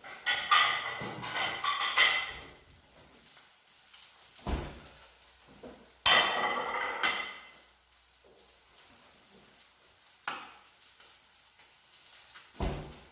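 A ceramic plate clattering as it is taken out and then set down on the counter, with a sharp click and a couple of dull thumps in between. A faint sizzle of breaded fish fillets frying in a pan runs underneath.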